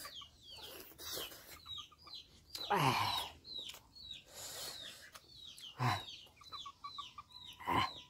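Chickens calling: quick high peeps repeating two to three times a second, with short runs of rapid clucking and a louder falling call about three seconds in.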